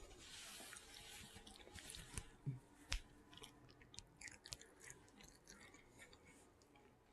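Faint crunching and chewing as a pet eats small hard pieces of food, with scattered sharp bite clicks; the loudest crack comes about three seconds in.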